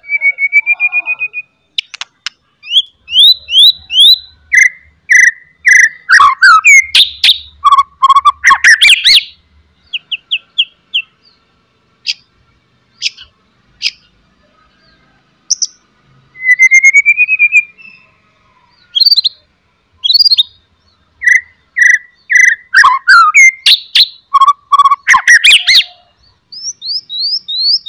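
White-rumped shama (murai batu) singing in full song: loud runs of short rising whistles repeated several times a second, fast trills, and harsh clicking chatter (cetrekan). The song comes in bursts, with a sparser spell of scattered clicks and one rising trill near the middle.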